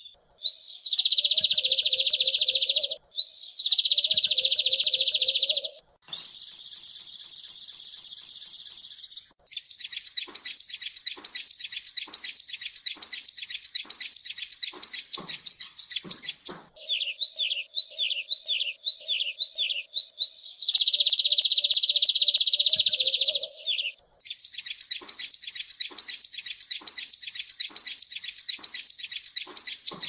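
Sunbird ('kolibri ninja') song: bursts of high-pitched trills and fast runs of repeated chirps, each a few seconds long, separated by short pauses.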